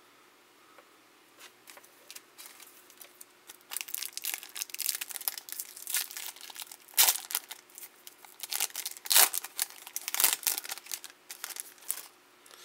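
Foil wrapper of a Topps Opening Day baseball card pack being torn open and crinkled by hand. Faint clicks at first, then from about three and a half seconds in a run of sharp crackling, with the loudest rips around the middle and shortly after.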